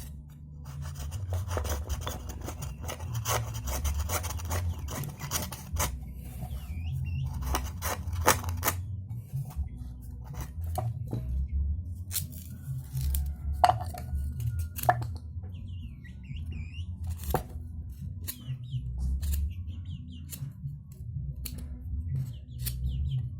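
Irregular clicks, scrapes and rasping of hand work on bamboo, over a steady low rumble, with a few faint chirps.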